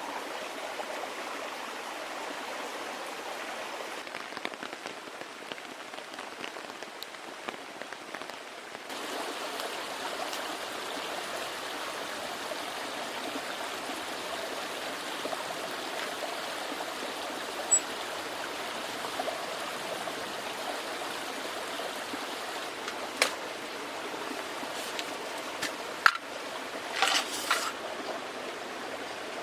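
Small brook babbling steadily, getting a little louder about nine seconds in. A few short sharp clicks and knocks come in the second half, most of them near the end.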